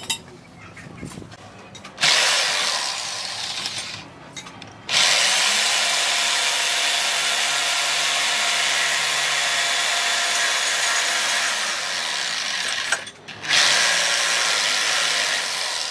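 Electric jigsaw cutting through a wooden plank. It starts about two seconds in and runs in three spells, with short pauses about four and thirteen seconds in. Light knocks and handling are heard before it starts.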